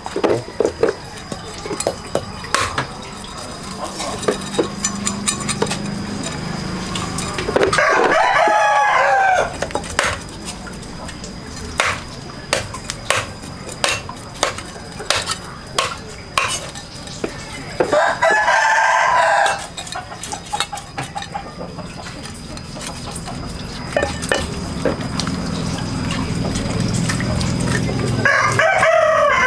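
A rooster crowing three times, roughly ten seconds apart, each crow lasting about two seconds, over scattered light clicks and knocks.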